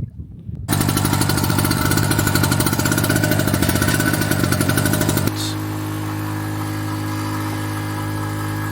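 Cheap two-stroke portable generator engine starting: it catches suddenly about a second in and runs loud with a fast, even firing rattle, then about five seconds in it drops to a quieter, steadier hum.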